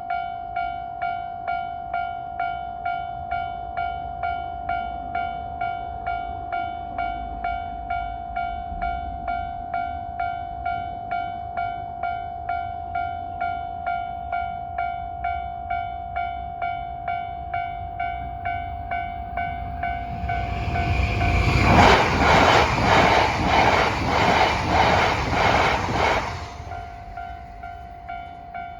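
Japanese level-crossing warning bell with the old JNR-style tone, ringing steadily at about two strikes a second. About twenty seconds in, an E3 series Tsubasa Shinkansen train passes. Its noise swells quickly and drowns the bell for about five seconds, then cuts off suddenly, and the bell rings on alone.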